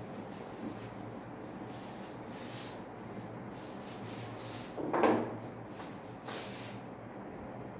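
Duster wiping a whiteboard in several short strokes, with one louder thump about five seconds in.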